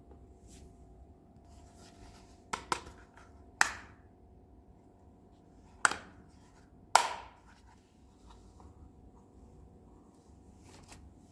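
Small toy kitchen pieces being handled and set down: two quick light clicks, then three louder sharp knocks a second or two apart, each ringing briefly.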